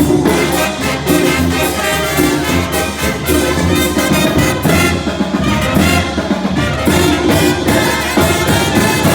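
Mexican banda music played live: trumpets and trombones over a low brass bass line, with drums keeping a steady beat.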